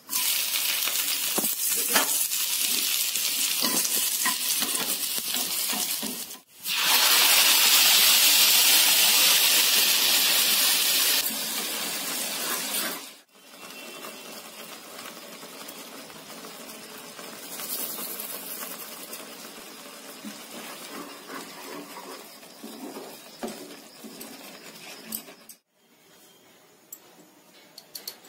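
Chopped garlic dropped into hot oil in a frying pan, sizzling, starting suddenly. After a cut, a louder spell of frying sizzle follows, then quieter sizzling from a simmering tomato sauce. Near the end there are a few light clicks of a spoon against a glass bowl.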